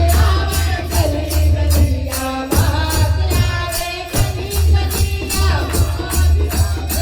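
Devotional kirtan music: a sung melody over rhythmic jingling percussion, about four strokes a second, with a steady low backing throughout.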